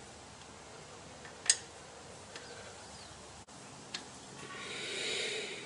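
Small metal-on-metal handling sounds as a magnetised drain plug is worked back into the axle housing by hand: one sharp click, a few faint ticks, then a soft rubbing that swells near the end.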